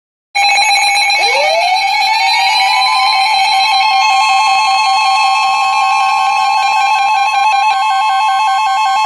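Weather alert tones: a steady high tone that swoops up in pitch over its first couple of seconds, over a fast warbling alarm. It starts suddenly after a brief silence and signals that a warning is about to be read.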